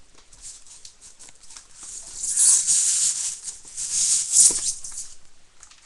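Scratchy rustling and rubbing of a pump-action BB gun being worked out of its polystyrene foam packaging tray. It is loudest in two stretches about two and four seconds in, with a light knock near the second.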